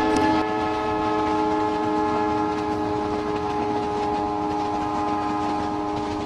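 Train horn sounding one long, steady multi-tone blast over the running noise of the moving train.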